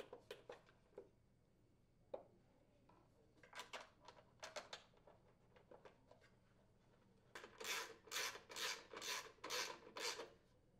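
Socket ratchet driving in the screw of a snowblower engine's plastic side access cover: about seven quick ratcheting strokes near the end. Before that come a few faint knocks and taps of the plastic cover being fitted.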